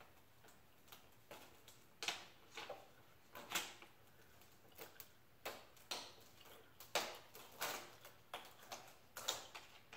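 Thin plastic sheet crackling and ticking irregularly as it is flexed and worked by hand, with sharp crinkles coming more often in the second half.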